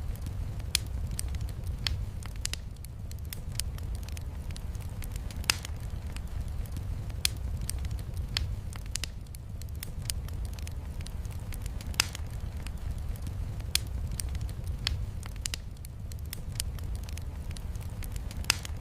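Log fire crackling in a fireplace: sharp, irregular pops about once or twice a second over a steady low rumble, mixed with the patter of heavy rain on the windows.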